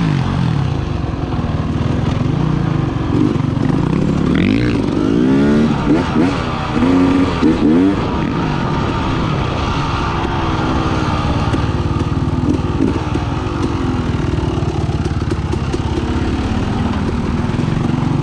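KTM dirt bike engine running under throttle, its revs rising and falling several times between about four and eight seconds in as the rider works the throttle, then holding steadier.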